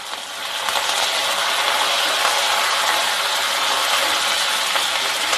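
Small shallots and freshly added curry leaves sizzling and crackling in hot oil in a pan as they are stirred. The crackle swells over about the first second, as the leaves hit the oil, then holds steady.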